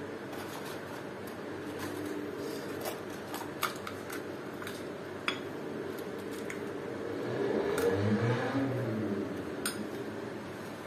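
Sharp clicks of a metal spoon against a bowl and crisp puri shells cracking as they are filled with potato mixture, over the steady hum of a small fan. Near the end a low, wavering drone swells for about two seconds.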